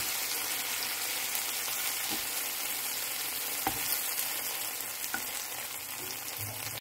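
Shrimp sizzling in hot oil in a nonstick frying pan, a steady sizzle that fades slowly. A few light clicks of metal tongs against the pan as the shrimp are lifted out.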